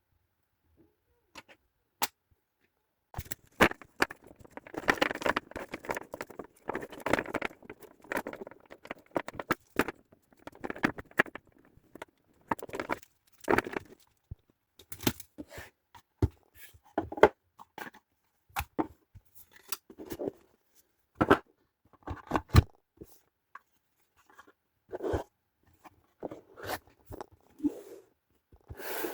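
Card game box and its packaging being handled and opened: irregular tearing and rustling with sharp clicks and taps, busiest in the first few seconds and then coming in scattered bursts.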